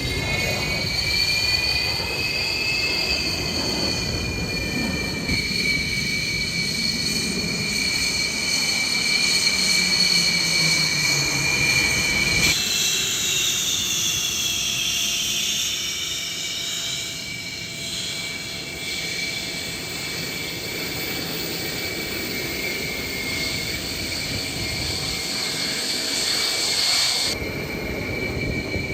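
Jet aircraft engines running with a rushing roar and a high turbine whine that slowly shifts in pitch. The sound changes abruptly about twelve seconds in and again near the end.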